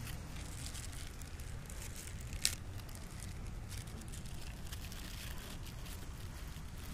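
Crinkling of a small clear plastic parts bag being handled, with one sharp click about two and a half seconds in, over a steady low rumble.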